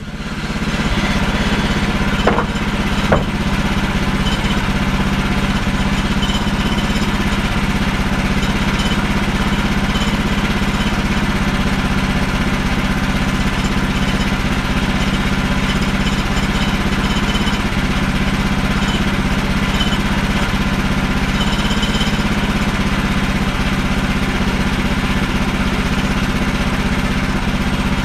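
The gasoline engine of a portable bandsaw sawmill running steadily, with two short knocks about two and three seconds in.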